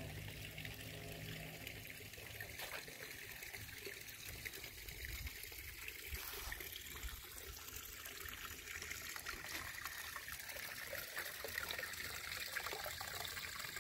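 Small creek trickling steadily over rocks.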